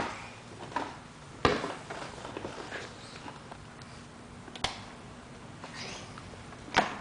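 Scattered light knocks and clicks as a baby handles objects on a low shelf, a plastic jar among them: about five short, sharp taps spread over several seconds.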